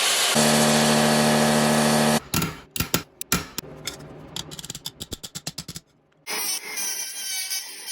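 Workshop sounds in quick cuts: a loud hiss, then a power tool's motor running steadily for about two seconds, then irregular scraping and tapping on metal parts. After a brief silence, a sound with steady tones comes in near the end.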